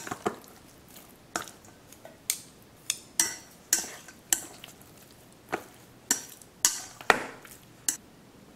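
Chopsticks clinking against a stainless steel bowl while tossing sliced marinated beef: about a dozen sharp, irregular clicks.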